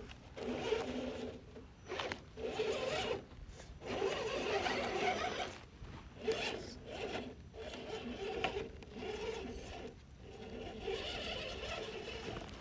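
An RC rock crawler's electric motor and gear drivetrain whirring in stop-start bursts, a steady whine that cuts in and out every second or two as it is driven.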